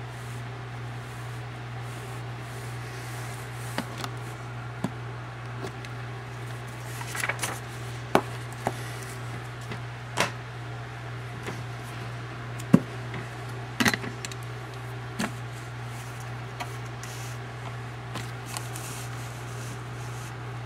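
Scattered knocks and clicks of handling as cardboard coin albums and the camera are moved about, over a steady low hum. The knocks come irregularly, with a small cluster about 7 to 9 seconds in and the sharpest knock about 13 seconds in.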